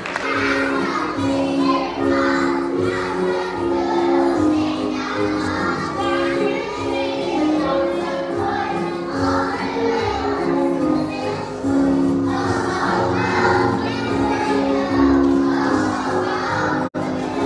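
A choir of young children singing a Christmas song together with musical accompaniment. The sound cuts out for an instant near the end.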